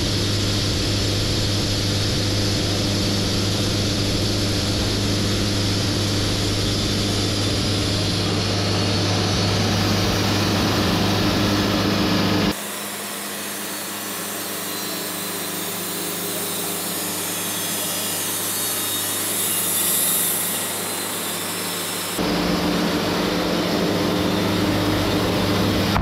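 Wood-Mizer band sawmill cutting through a log: the mill's engine hums steadily under the hiss of the band blade in the wood. About halfway through, the sound switches abruptly to a thinner hiss without the engine hum for about ten seconds, then the full hum and hiss return.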